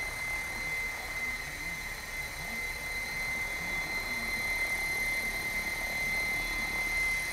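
Electric 700-size RC helicopter hovering at low head speed, running steadily with a constant high-pitched whine over the rotor noise.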